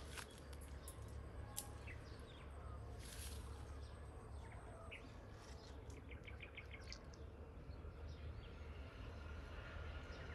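Faint outdoor ambience: scattered bird chirps, with a quick run of about six short notes a little past the middle, over a steady low rumble.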